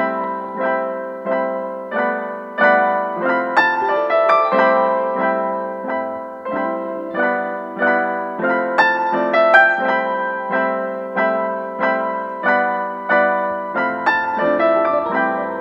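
Background piano music: a melody of evenly paced notes, about two a second, each struck and fading away, with low bass notes joining near the end.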